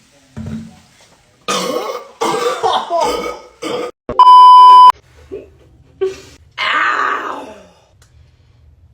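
A person coughing and spluttering in a quick run of short bursts, with a loud steady beep of under a second in the middle: a censor bleep. One more cough near the end.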